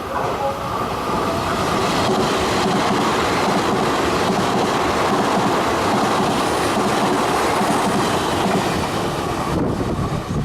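Taiwan Railway electric train running past at speed, its wheels clattering over the rail joints. The noise swells in the first second, then stays loud and steady.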